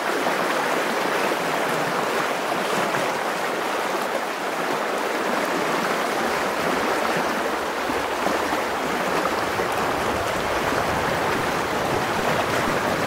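Fast river current rushing and splashing steadily around a wading angler's legs.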